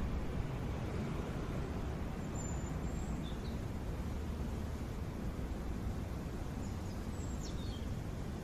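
Steady outdoor background noise, heaviest in the low end, with two faint high chirps that fall in pitch: one about two and a half seconds in and one near the end.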